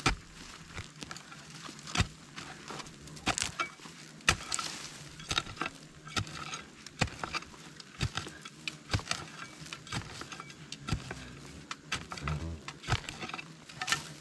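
Irregular sharp knocks and scraping of a tool digging into packed earth at a giant hornet nest, about one or two strikes a second, with hornets buzzing faintly.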